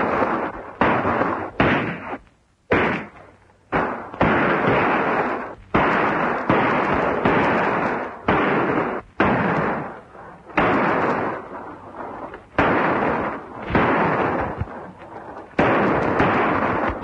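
Gunfire in an old film shootout: single gunshots one after another, about one a second, each dying away quickly.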